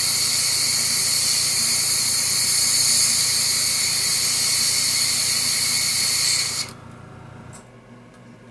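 Airbrush spraying: a steady, loud hiss of air that cuts off suddenly about seven seconds in. A low hum runs underneath and stops about a second after the hiss.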